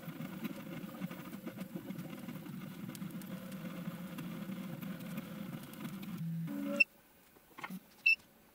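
Prusa MK3S 3D printer humming steadily with its fans running while it sits paused at a filament change, its hotend still too hot for the PVA. Near the end it gives a brief motor whine, then the hum stops abruptly, followed by a few faint clicks and a short high beep.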